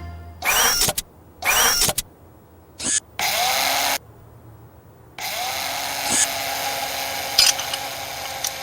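Cartoon sound effects: two short noisy swishes with gliding tones, a brief burst and a longer blast, then after a short pause a steady mechanical whirring, like a small motor or drill running, from about five seconds in.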